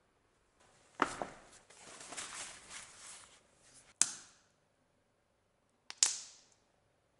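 Small handling sounds on a workbench: a sharp click about a second in, followed by rustling, then two more sharp clicks about two seconds apart, each cut off abruptly.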